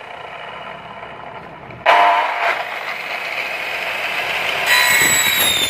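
A 1650 W Makita aluminium cutting saw (mitre saw) switches on suddenly about two seconds in, its motor whining up to speed. About a second before the end the blade bites into an aluminium profile with a high, ringing screech. The saw keeps running without the 900 W household supply tripping.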